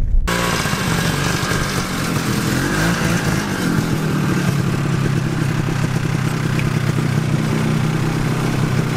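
Snowmobile engine running at a steady speed while riding across the lake ice, a loud continuous drone that picks up slightly about three seconds in.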